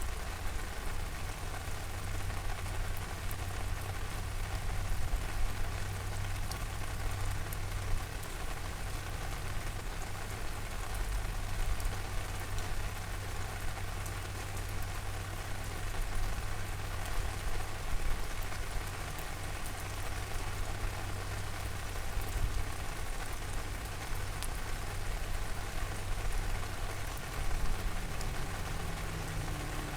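Steady rain falling, an even hiss with scattered fine drop ticks, over a steady low rumble.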